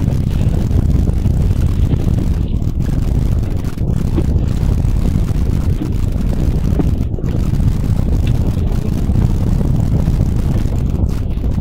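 Steady low rumble aboard a fishing boat at sea: the boat's engine running with wind buffeting the microphone.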